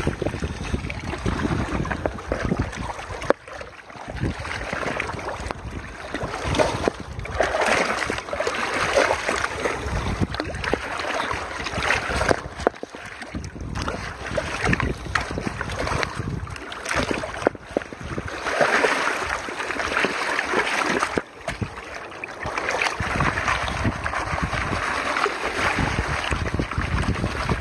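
Water sloshing and swirling in a plastic gold pan as mud and gravel are washed out, coming in repeated surges, with gravel shifting against the pan. Wind rumbles on the microphone underneath.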